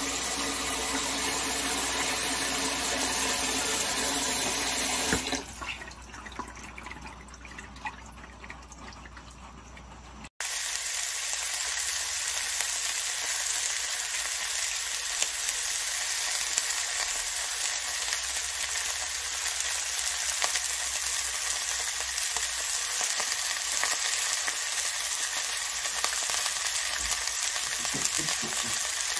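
Tap water running hard into a bowl holding meat in a steel sink for about five seconds, then softer splashes and clicks. After about ten seconds, squid and fried eggs sizzle steadily on a ridged grill pan.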